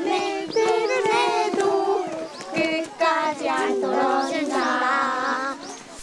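A group of young children singing a song together as they walk, with a woman's voice singing along among them.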